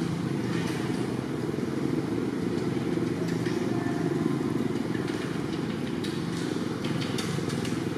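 A steady, low engine-like hum that holds level, with faint scattered clicks above it.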